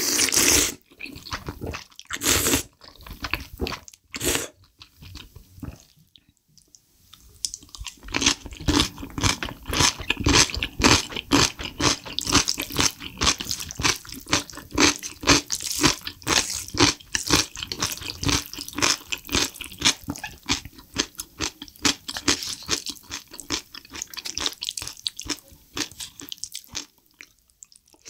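Close-miked eating of spicy black bean instant noodles: a loud slurp right at the start and two more in the first few seconds. After a short lull, dense continuous chewing with many quick crisp clicks.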